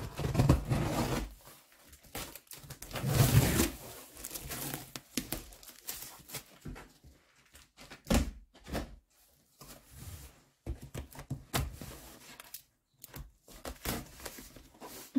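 Packing tape being slit and peeled off a large cardboard box: scraping, ripping and rustling, with light knocks on the cardboard. It is loudest near the start and again about three seconds in.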